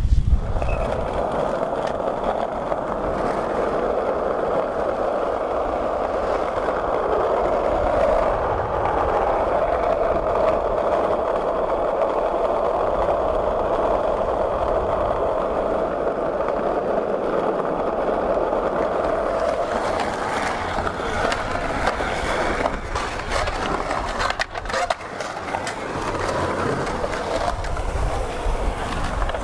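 Skateboard wheels rolling steadily over asphalt for about twenty seconds. Then comes more uneven rolling broken by several sharp board knocks and clacks.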